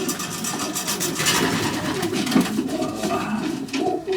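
Young racing pigeons cooing in a loft, several low, wavering coos overlapping, with scattered light clicks and scuffles.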